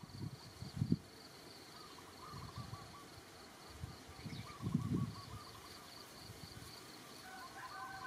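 Faint outdoor ambience: an insect's steady, high pulsing trill, a few soft warbling bird calls, and a handful of low muffled bumps, the loudest a little before halfway.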